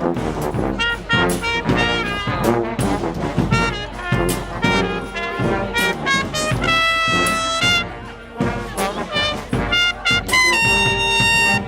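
Brass band playing, with trumpets and trombones over a steady beat. A long chord is held a little past the middle, and another from near the end.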